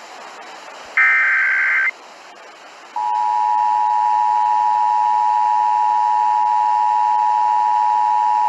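Emergency Alert System broadcast tones. A short screeching burst of digital header data comes about a second in. From about three seconds in, the steady, loud two-tone EAS attention signal sounds, announcing that an emergency alert (here an Amber Alert) follows.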